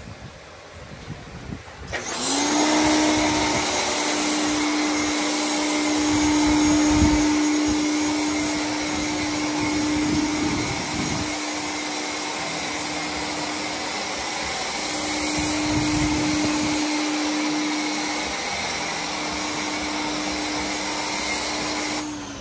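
Pressure washer running: its motor starts about two seconds in with a short rising hum, then runs with a steady hum over a loud hiss of spray. The hum dips briefly twice.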